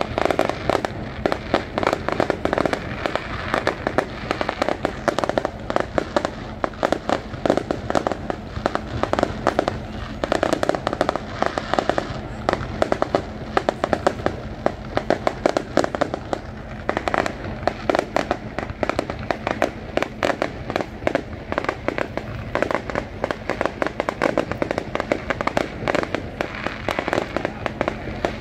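Fireworks display: aerial shells bursting in a rapid, unbroken string of sharp bangs, many each second.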